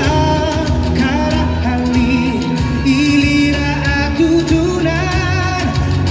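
A man singing live into a microphone over pop backing music with a steady beat.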